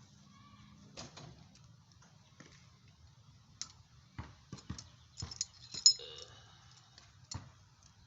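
Loose metal parts and hand tools clicking and clinking as a bolt, washers and a socket are handled and fitted to a shock absorber eye to press out its bushing sleeve. The clicks come irregularly and thicken after about four seconds, with one sharp ringing metal clink about six seconds in.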